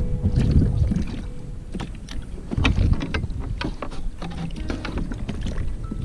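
Wind buffeting the microphone and water slapping against a kayak hull, with scattered small knocks and clicks of gear on the boat.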